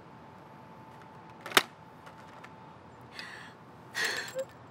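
A single sharp click about a second and a half in, then two short soft hisses near the end.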